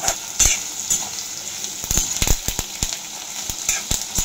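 Sliced onions, green chillies, peanuts and curry leaves sizzling in oil in a kadhai over a high flame, with a steady hiss. A spatula stirs them, knocking and scraping against the pan in a quick run of strokes, thickest about two seconds in.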